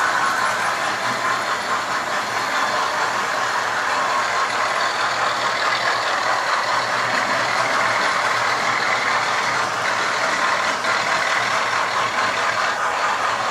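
Model railway trains running on the layout: a steady whirring rumble of small electric motors and wheels on the track, with a few faint clicks near the end.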